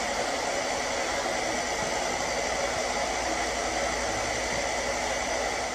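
Hair dryer blowing steadily, a constant rush of air with a faint whine.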